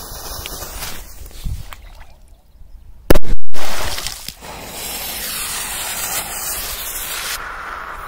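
A firecracker thrown into a river goes off about three seconds in with one very loud bang at the water's surface. It is followed by a few seconds of hissing spray as water and debris rain back onto the water.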